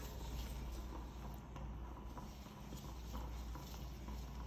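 Faint scraping and rustling of a metal spoon stirring a thick chocolate, nut and coconut mixture in a plastic bowl, with a few soft clicks.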